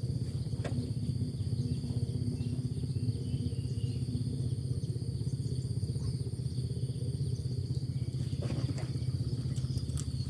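A steady low, fast-pulsing engine-like throb, with a thin steady high whine above it and a few faint knocks.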